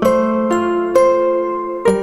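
Calm background music: soft keyboard notes, like an electric piano, played one at a time about every half second, each ringing on and fading slowly over a steady low note.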